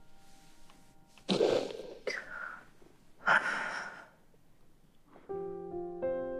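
A person breathing heavily: two deep breaths of under a second each, about two seconds apart, with a shorter breath between them. Soft piano music comes in near the end.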